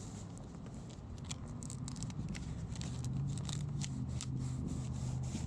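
Velcro straps being pressed and pulled, giving scattered small crackles and ticks. Under them is a low steady engine hum that grows louder about two seconds in.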